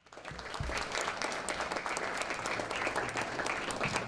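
Audience applauding, many hands clapping at once, fading in at the start.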